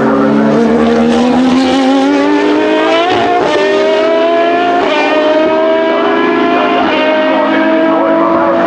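Race car engine accelerating hard, its pitch climbing steadily and dipping briefly at each of several upshifts.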